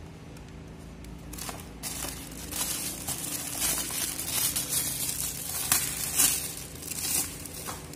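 Plastic bags and a cardboard box rustling and crinkling as hands rummage through a box of parts, with irregular crackles, starting about a second in and stopping near the end.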